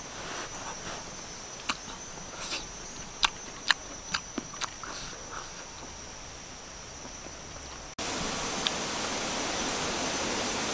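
Close-up eating sounds of grilled snails being chewed: a string of sharp mouth clicks and smacks over a steady high insect drone. About eight seconds in the background jumps to a louder steady hiss, with a click or two of chewing still heard.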